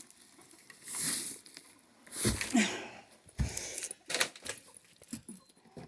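Rustling and knocking from hands rummaging through nest-box bedding and handling eggs, in a handful of short scuffles and sharp clicks, the loudest about two seconds in.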